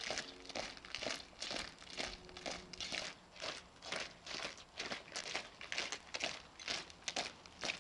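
A quick, irregular run of short crinkling, rustling crackles, about three or four a second.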